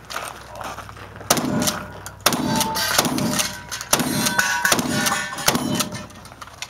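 About six gunshots from a shoulder-fired gun at an irregular pace, roughly a second apart, each followed by the brief metallic ring of a steel target being hit.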